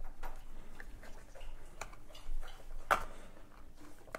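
Small clicks and rubbing of an iPhone being pressed into a tight-fitting Quad Lock phone case, with one sharper click a little before three seconds in.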